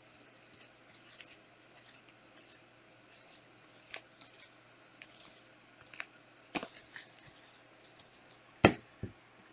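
Trading cards being handled and slid against each other, with quiet rustles and light clicks. A sharper tap comes about two-thirds of the way in and another near the end.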